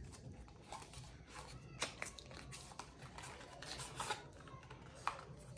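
Faint clicks and rustles of a small cardboard cosmetics box being handled and opened.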